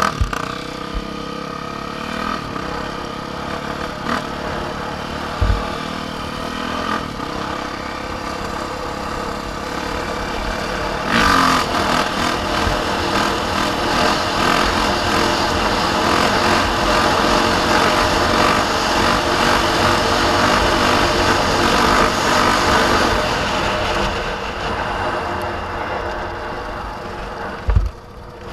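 Off-road vehicle engine running under way, louder from about eleven seconds in and easing off near the end, with a couple of short low thumps.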